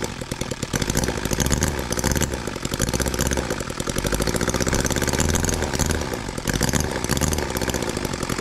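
H75 four-cylinder spark-ignition model engine running on Everclear alcohol through a vaporizer carburetor, just after being started with a drill. It fires rapidly and steadily, its speed wavering a little up and down.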